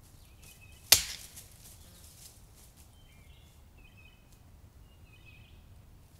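A single sharp, loud crack about a second in, then short bird chirps scattered over a faint outdoor background.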